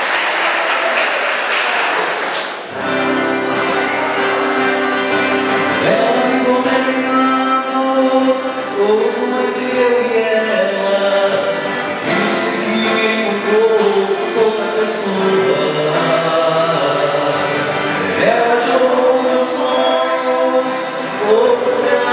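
Applause, then about three seconds in a live sertanejo duo starts playing: strummed acoustic guitars, and from about six seconds in two male voices singing together.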